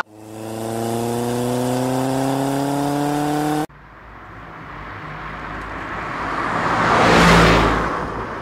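Trabant's two-stroke engine pulling in gear, its note rising steadily for a few seconds until it cuts off suddenly. Then a vehicle passes by, its noise swelling to a peak near the end and fading.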